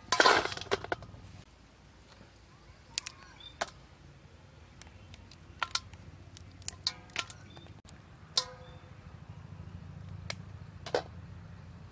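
Raw sea crabs being broken apart by hand over an aluminium bowl: a loud clatter of shell against the bowl in the first second and a half, then scattered sharp cracks and clicks as the claws and legs are snapped off.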